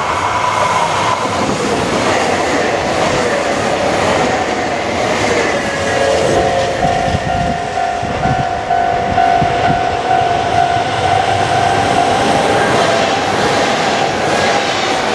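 A Kintetsu Minami Osaka Line electric train running over the level crossing, its wheels clattering over the rail joints, while the crossing's warning bells ring as a steady set of tones above the rumble.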